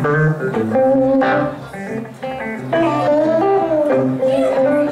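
Several electric guitars playing an instrumental break, a lead line bending notes up and down over the chords.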